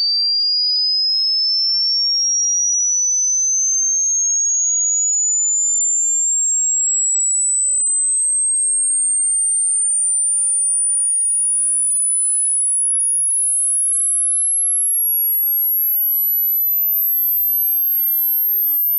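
Hearing-test tone: a single pure sine tone gliding slowly and steadily upward from a high pitch to a very high one at an even loudness.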